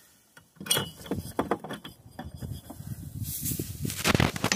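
Gloved hands handling an LED cube light, its steel mounting bracket and small nut-and-washer hardware: a run of small clicks and knocks, then rubbing and rustling about three seconds in that gets louder near the end.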